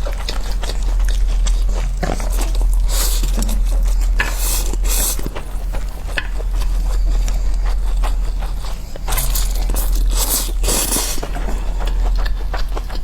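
Close-up eating: crunchy bites and chewing in irregular bursts, with the loudest stretches about three to five seconds in and again around nine to eleven seconds. A steady low hum runs underneath.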